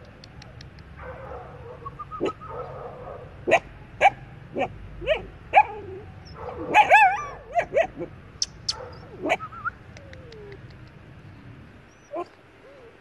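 A dog barking: a run of short, sharp barks and yelps, thickest between about two and ten seconds in, over a steady low background hum.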